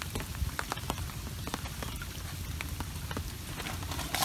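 Rain falling on the open flood water of a swamp forest, a steady hiss dotted with many separate drop ticks: the pitter-patter of rain.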